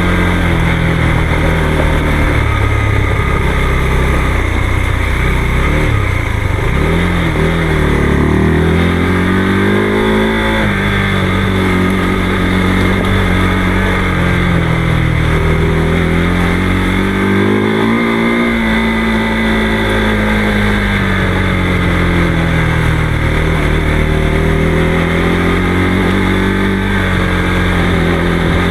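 Motorcycle engine running while riding, its pitch rising and falling gently as the throttle is opened and eased off, with steady wind and road noise underneath.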